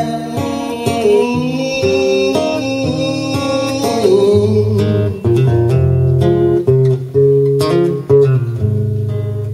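Acoustic guitar strummed and picked through an instrumental passage of a live song, its chords played through a PA.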